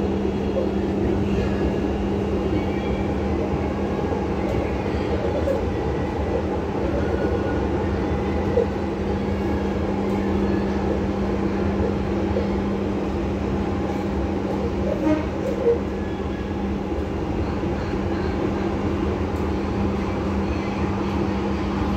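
Inside a moving Palembang LRT light-rail car, built by INKA: steady running noise with a constant low hum, and a few brief knocks about eight seconds in and again about fifteen seconds in.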